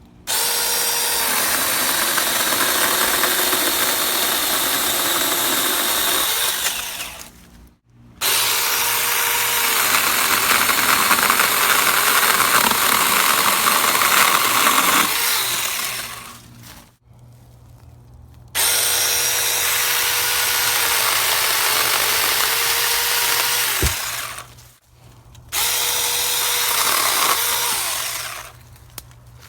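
RLSOO 6-inch cordless electric mini chainsaw run four times for several seconds each, cutting through wood. Its motor whine sags slightly under load during each cut.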